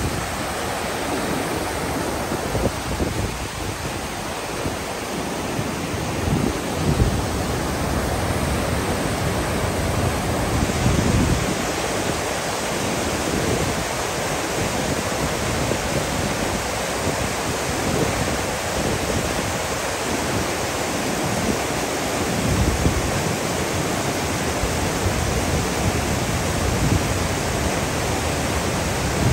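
Whitewater of a swollen mountain creek rushing and churning over boulders, a steady full roar, with uneven low rumbles of wind buffeting the microphone.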